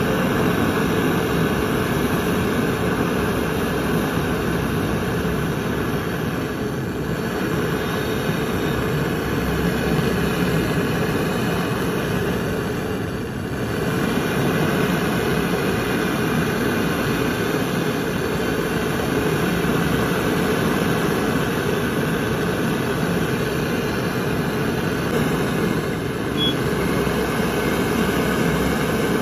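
Gas torch flame burning with a steady rushing noise, briefly quieter a few times, as aluminium filler rod is melted into a puncture in an aluminium refrigerator freezer cooling coil.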